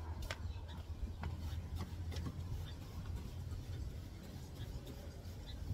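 Window cleaning by hand: short clicks and faint rubbing from a trigger spray bottle and a cloth wiping window glass, over a steady low rumble.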